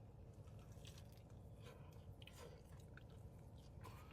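Faint chewing of a crispy-edged chicken cheese breadstick, with a few soft, brief crunches over a low steady room hum.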